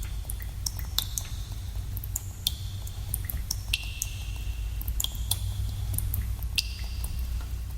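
Water drops falling in a cave, a few a second at irregular intervals, each a sharp plink with a short ringing tone, over a steady low rumble.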